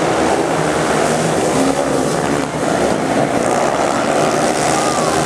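A pack of speedway motorcycles racing on a dirt oval, their 500cc single-cylinder engines running hard in a loud, continuous drone.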